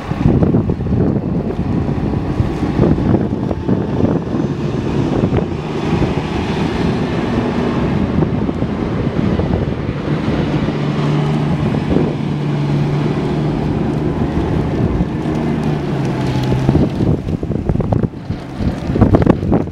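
Fire ladder truck's diesel engine running loud and close as it drives past, with wind buffeting the microphone. A steady low engine drone holds through the middle.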